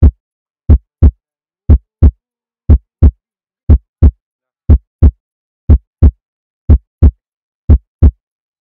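Heartbeat sound effect: a steady lub-dub, pairs of deep thumps repeating about once a second.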